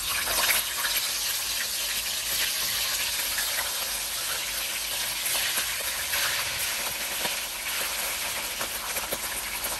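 Pieces of boiled, drained goat meat shallow-frying in hot oil in a wok: a steady sizzle with scattered small crackles. It starts abruptly as the first pieces go in.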